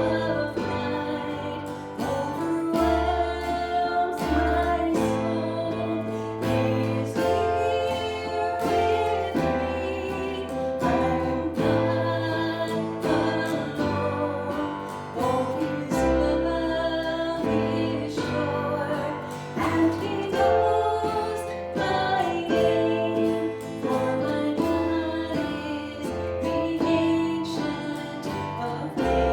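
A song with singing over instruments, including guitar and a bass line that changes note every second or two.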